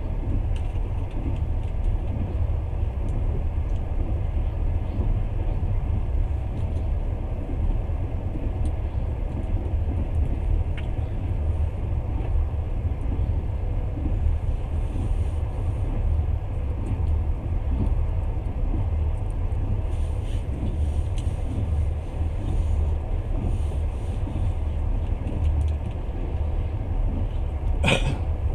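Passenger train in motion, heard from inside the carriage: a steady low rumble of the wheels running on the rails, with one sharp click near the end.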